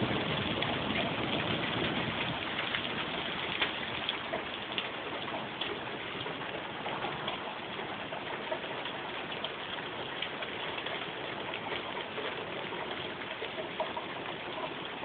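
Pea-sized hail and rain pelting down in a steady hiss, thick with small sharp ticks of hailstones striking, a little heavier in the first few seconds.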